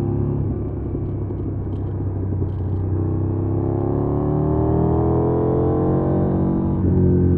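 2020 KTM 790 Duke's parallel-twin engine under way, revs climbing steadily from about three seconds in as it pulls through a gear, then dropping sharply near the end with a shift up.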